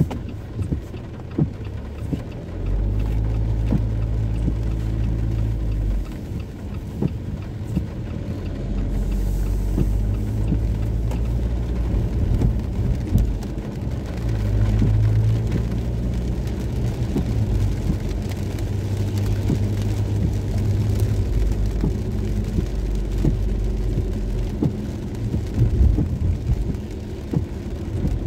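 Rain and city traffic, with a heavy low rumble that comes and goes in stretches of several seconds and many small sharp taps throughout.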